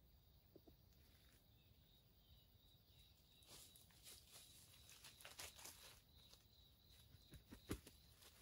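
Near silence with faint rustling and ticking in dry leaf litter as a wild rooster (red junglefowl) walks and scratches for food, ending in a slightly louder snap near the end.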